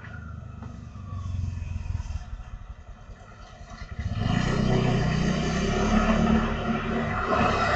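Motor scooter engine passing close by. It gets much louder about four seconds in and stays loud, with a second motorcycle approaching behind it.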